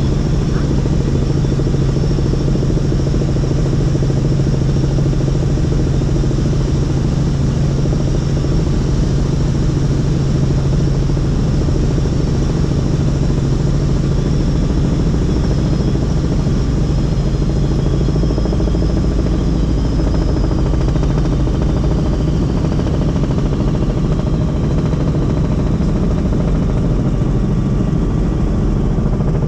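Helicopter in flight: steady, loud engine and rotor noise, with the low hum shifting in pitch about halfway through.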